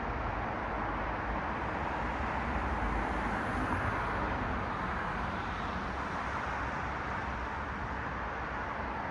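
City road traffic: cars passing with a steady tyre-and-engine hiss, one car swelling louder about three to four seconds in.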